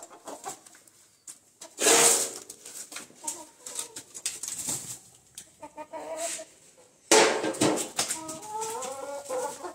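Domestic hens clucking and squawking as they are chased out of a room, with short bending calls scattered throughout and thickest near the end. Two loud, noisy outbursts come about two seconds and about seven seconds in.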